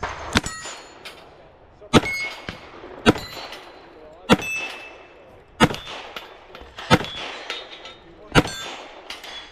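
Smith & Wesson 686-6 revolver fired double action in a steady string of about seven shots, roughly one every second and a quarter. Each shot is followed by the clang and ring of a struck steel plate.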